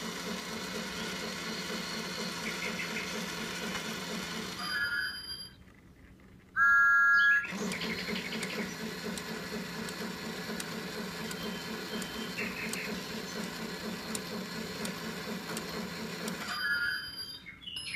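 Small motor of a battery-powered Thomas & Friends toy clock play set whirring with a fast, even rattle as the toy Thomas engine runs round the track. It stops twice. About seven seconds in, a loud electronic tone from the toy sounds for about a second before the motor runs again.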